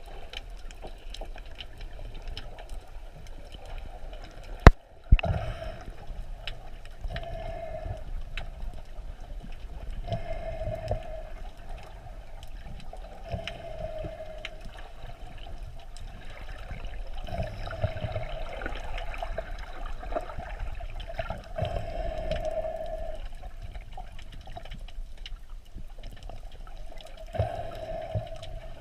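Muffled water sounds as heard by an underwater camera: gurgling and swishing that swell every few seconds over a low rumble, with one sharp click about five seconds in.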